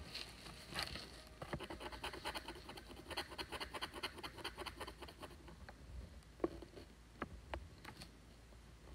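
Wooden stylus scratching the coating off a scratch-art board in a run of quick, short strokes, then a few separate scratches near the end.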